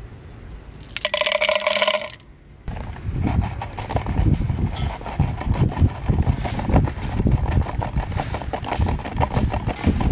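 A handful of Mentos dropped into a PVC pipe of Coca-Cola, clattering and ringing against the plastic for about a second. After a short pause comes a dense crackling fizz as the cola foams up in the pipe.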